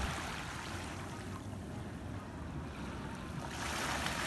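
Shallow sea water sloshing and splashing around the legs of a person wading, getting louder about three and a half seconds in.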